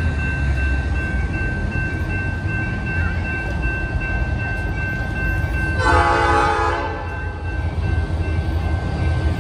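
EMD SD40-2 diesel locomotive's two-stroke V16 engine running as it approaches at low speed, with one short blast of about a second from its Nathan P5 five-chime air horn about six seconds in.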